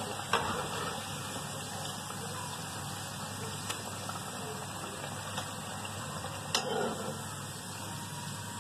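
Potato pakoras frying in hot oil in a karahi: a steady crackling sizzle. A few metal clicks sound as a slotted spoon knocks against the pan while the pakoras are lifted out.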